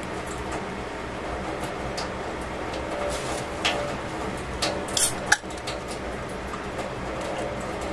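Fish grilling on a foil-lined metal tray: a steady hiss and low rumble with scattered pops and clicks, the loudest a sharp crack about two-thirds of the way through.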